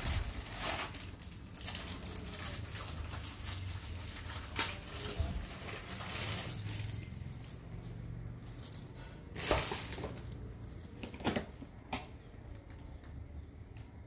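Stacked glass bangles clinking and jingling against one another as they are handled. The clinks come thick and fast for the first several seconds, then a few separate clinks follow near the end.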